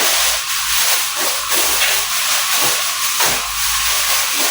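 A steady, loud hiss, with a few faint rustles and taps over it.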